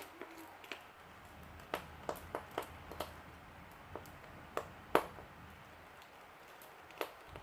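A dozen or so sharp, irregular clicks and taps of small hand tools working on a smartphone during disassembly, the loudest about five seconds in.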